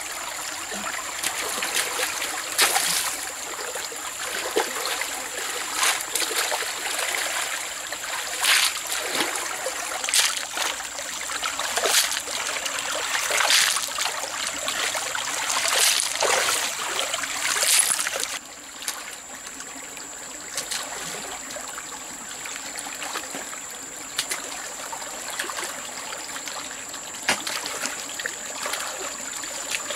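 Water trickling and flowing, with splashes every second or two. About two-thirds of the way through the splashes stop suddenly, leaving a quieter, steady flow.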